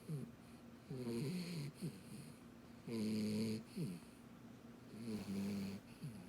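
Dachshund-beagle mix puppy snoring in a steady rhythm. There are three pitched snores, each about half a second long and about two seconds apart, with a short falling note after each.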